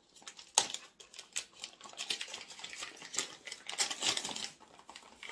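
Gift wrapping being torn open and handled: irregular crinkling and rustling with clicks, the sharpest crackle about half a second in.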